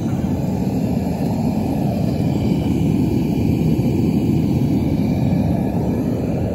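Propane burner of a metal-melting furnace running with a steady, low rushing noise.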